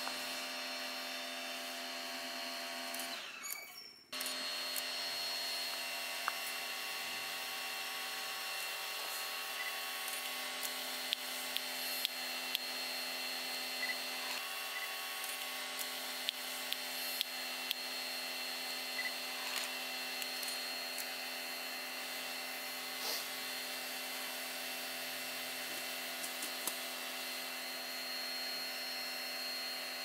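Pygmy slow loris hiccuping: short, faint clicks at irregular intervals, several close together in the middle stretch. Under them runs a steady drone of several held tones, which cuts out briefly about four seconds in and then returns.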